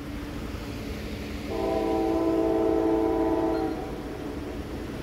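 Raised-letter Nathan K5LA five-chime air horn on a GE CM44AH locomotive sounding one steady blast of about two seconds, starting about a second and a half in, over steady train noise.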